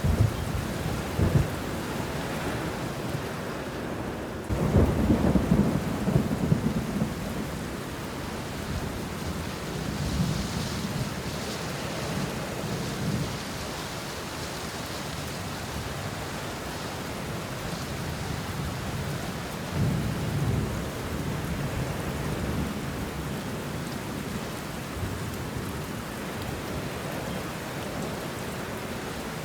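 Steady rain falling on banana leaves and bushes, with thunder rumbling low through it, the loudest roll starting about four and a half seconds in and another around twenty seconds.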